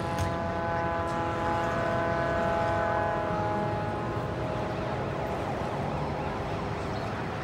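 City street traffic noise. Just after the start a steady droning tone with several overtones comes in over it, and it fades out about five seconds in.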